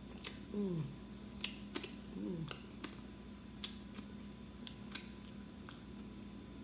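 Close mouth sounds of someone licking and sucking sauce off her fingers: scattered wet smacks and clicks, with two short falling hums of the voice, about half a second in and about two seconds in, over a steady low hum.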